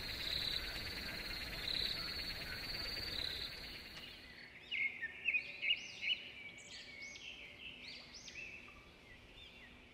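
A steady, high, pulsing chorus of night insects such as crickets, which fades after about four seconds into a run of short, arching bird chirps.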